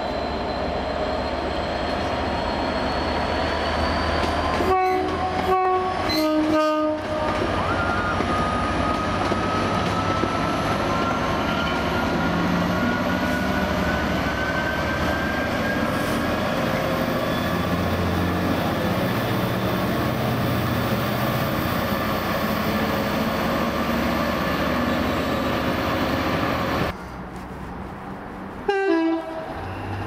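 Class 66 diesel-electric freight locomotive sounding its two-tone horn, a higher note followed by a lower one, then its two-stroke V12 diesel working under power as it pulls away, with a slowly rising whine. Near the end the sound drops suddenly and another train gives a brief horn note.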